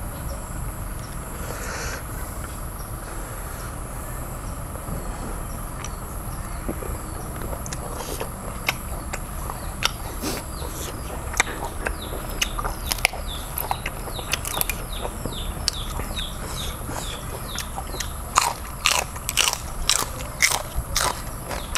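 Close-up eating sounds: chewing and biting on boiled spotted babylon sea snails, with sharp clicks and crunches that come more and more often toward the end. A steady high insect drone runs behind.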